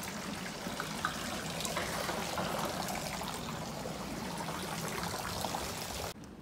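Water pouring from the dragon-head spout of a shrine's stone purification fountain into the full basin: a steady splashing trickle that cuts off abruptly near the end.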